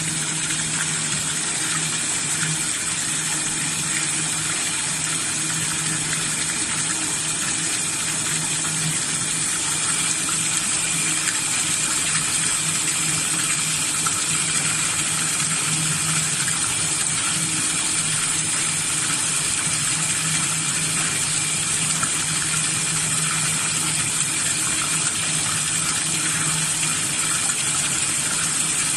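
A steady stream of running water pouring into a tub of shucked scallops, splashing continuously, with a steady low hum underneath.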